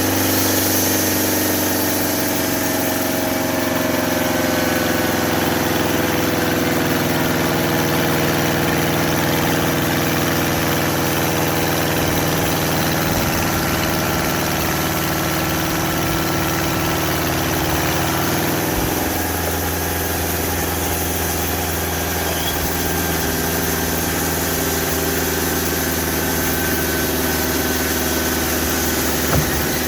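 Homemade sawmill running steadily on its engine, a constant mechanical drone whose pitch shifts about two-thirds of the way through. A single small knock comes near the end.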